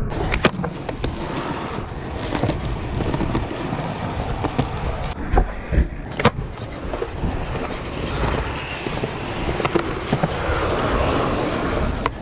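Skateboard wheels rolling over rough concrete, with a deep rumble, broken several times by sharp pops and clacks of the board hitting the ground as tricks are popped and landed.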